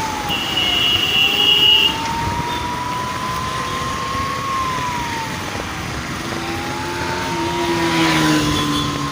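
Emergency vehicle siren wailing in slow rising-and-falling cycles, about two of them, over steady street traffic noise. A short high-pitched steady tone, like a horn, sounds briefly near the start.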